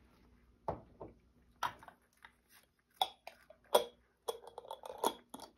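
Cat crunching dried sardines: a string of sharp, irregular crunches, the loudest a little past the middle, with a quick run of them near the end.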